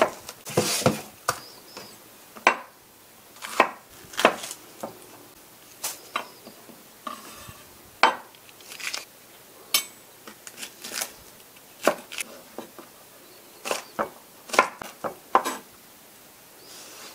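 Kitchen knife cutting a green bell pepper on a wooden cutting board: irregular sharp knocks of the blade against the board, closer together in the last few seconds as the pepper is diced.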